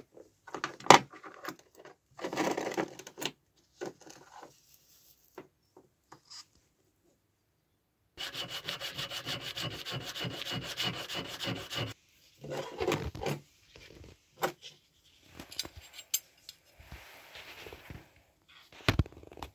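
Hand file scraping a small metal piece clamped in a vise, in about four seconds of quick, even strokes with a ringing tone from the metal. Before it come clinks and brief scrapes from metal pieces being handled, and after it more short scrapes, with a knock near the end.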